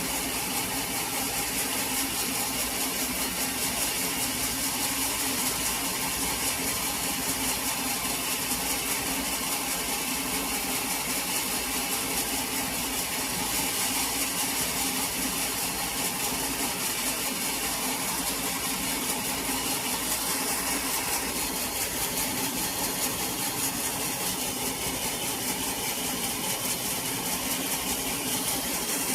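Sawmill machinery running steadily: a constant engine-like hum with hiss, unchanging throughout.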